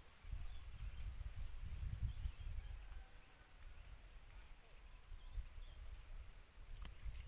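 Outdoor background noise: a steady high-pitched whine over a low rumble that eases after about three seconds, with a couple of faint clicks near the end.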